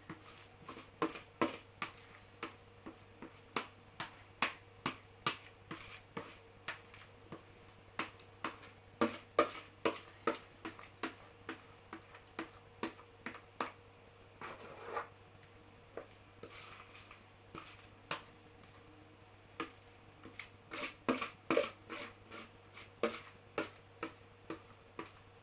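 Metal spoon scraping a soft, wet mixture out of a plastic mixing bowl into a baking dish: a run of sharp irregular clicks and taps, about two a second, with a couple of longer scrapes in the middle.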